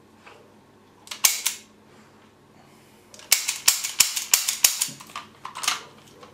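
Replica revolver's hammer snapping as the trigger is pulled again and again without a shot going off: two clicks about a second in, a rapid run of about eight a couple of seconds later, and one more near the end. The gun is failing to fire.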